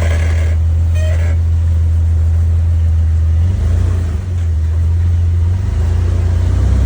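Jeep Wrangler LJ engine running at low revs as the Jeep crawls over rock, a steady low drone whose note shifts about three and a half seconds in as the throttle changes.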